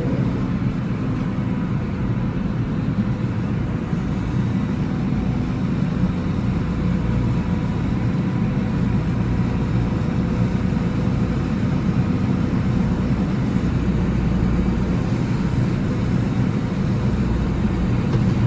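Massey Ferguson 5711 tractor engine running steadily under way, a constant low drone.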